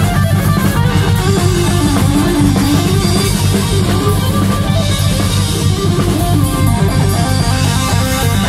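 Live amplified blues-rock band playing: electric guitar, bass and drums, with a harmonica played into the vocal microphone.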